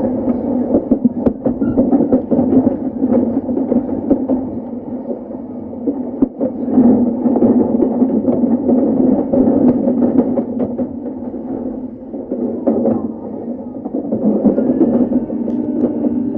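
Running noise inside a JR East E233-series motor car (MoHa E232-3619): a steady rumble of wheels on rail, with frequent short clicks and knocks throughout.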